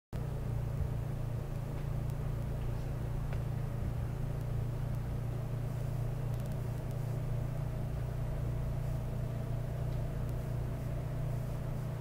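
Muddy flash-flood water rushing past in a steady, unbroken low rumble.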